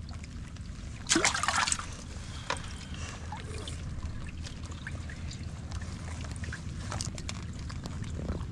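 Water trickling and dripping over a low steady rumble, with a short louder splash about a second in and a few small clicks later.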